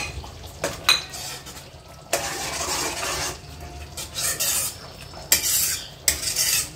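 A metal spoon stirring thick curry gravy in a metal pan: two sharp clinks of the spoon against the pan at the start and about a second in, then a series of scraping, swishing strokes.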